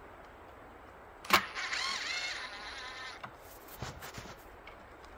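A sharp knock, then a handheld power drill spinning for about two seconds, its motor whine dipping in pitch and recovering as it takes load.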